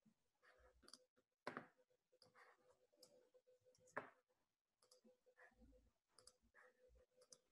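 Near silence with faint scattered computer mouse clicks. Two of them are louder, about a second and a half in and again about four seconds in, over a faint steady hum.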